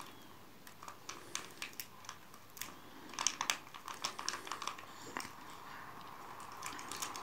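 Fingers pressing and rubbing on the film-wrapped pouch of a swollen flat laptop battery cell, giving faint, irregular crinkling and clicking as the trapped gas is squeezed out through pin-pricked holes.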